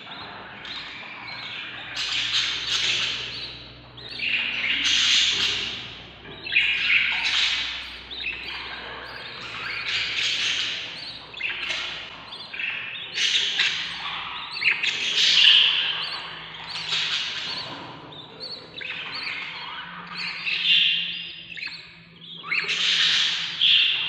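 Ten-day-old budgerigar chicks begging for food: a string of harsh, raspy squawking calls, one every second or two.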